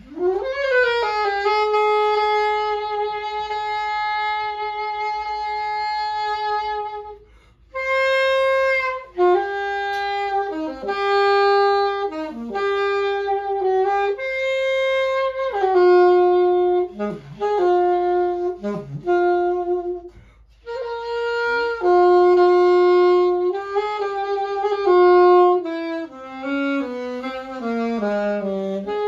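Solo saxophone played live, unaccompanied: one long held note for about seven seconds, then a slow melody of sustained notes separated by short breaks, ending in a falling run down to low notes.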